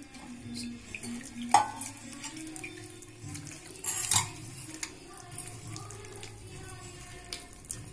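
A hand mixing and squeezing thick appam batter in a stainless steel bowl, with the bowl and nearby steel vessels clinking; two sharper clinks come about a second and a half in and about four seconds in.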